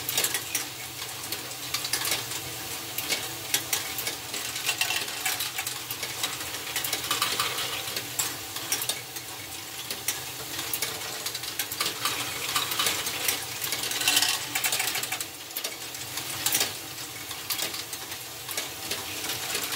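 LEGO Technic great ball contraption modules running in a loop: plastic balls clatter and click continuously through the conveyors, steppers and tippers over the steady whir of the motors and gear trains.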